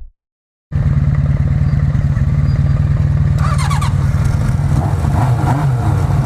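Motorcycle engine running steadily at idle, a dense low pulsing rumble that cuts in abruptly just under a second in.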